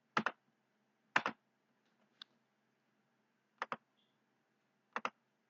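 Sharp computer clicks, mostly in quick pairs, four pairs and one faint single click spread unevenly over a few seconds.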